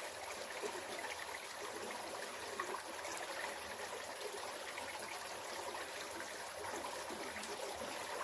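Small rocky creek flowing and trickling steadily.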